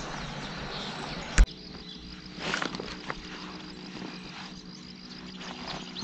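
An insect chirring as a faint, evenly pulsed high trill. There is a sharp knock about a second and a half in and a brief rustle about a second later.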